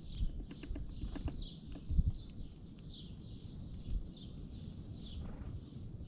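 Small songbirds at a ground seed pile giving short high chirps over and over, about two a second, with scattered sharp clicks in the first couple of seconds. A low rumble runs underneath, with a loud thump about two seconds in.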